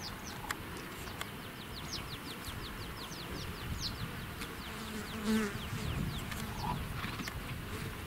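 Outdoor pasture ambience: a bird sings a fast run of short falling high notes, about six a second, through the first half, and a flying insect buzzes briefly about halfway through, over a steady low rustle.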